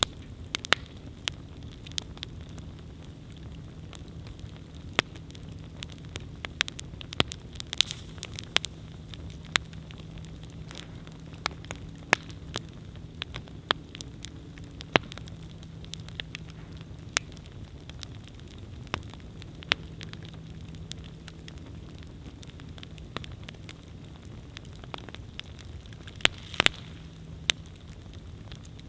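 Wood campfire burning, with frequent irregular sharp crackles and pops over a low, steady rumble of flame. The pops bunch together about eight seconds in and again near the end.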